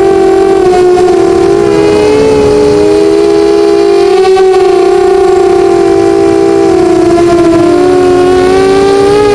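Eachine 250 FPV racing quadcopter's brushless motors and propellers whining loudly: several close, steady pitches that drift up and down against each other as the throttle changes.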